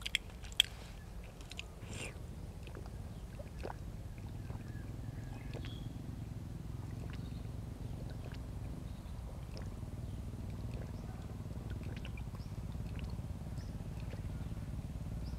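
A few small clicks of eating right at the start and faint scattered ticks, over a steady low hum that grows slightly louder.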